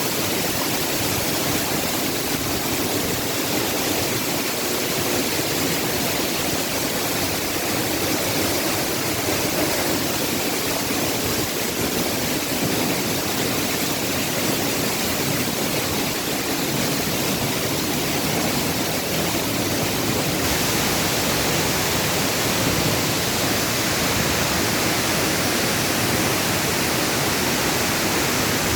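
Waterfall: a loud, steady rush of falling water, growing a little brighter and hissier about twenty seconds in.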